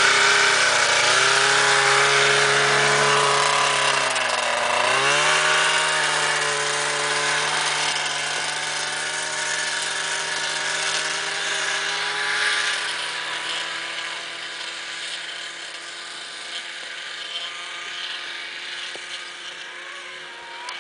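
Arctic Cat ZR 580 snowmobile's two-stroke engine running close by, its pitch dipping and rising twice in the first five seconds. It then holds a steady pitch and fades gradually as the sled pulls away.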